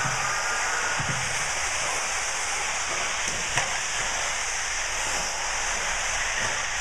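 Several 1/8-scale off-road RC buggies racing on a dirt track: a steady, high-pitched din of motors and tyres, with a single knock about three and a half seconds in.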